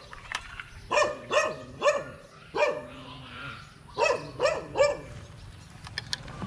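A dog barking, a string of short high barks in two runs of three or four.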